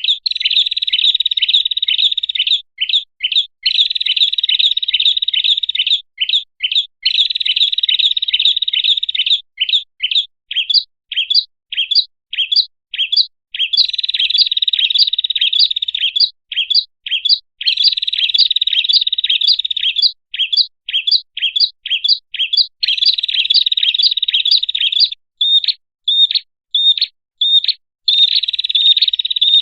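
Bird-lure recording of a prenjak (prinia) calling: sharp high chirps in dense runs a few seconds long, alternating with separate chirps about three a second, repeating without a break.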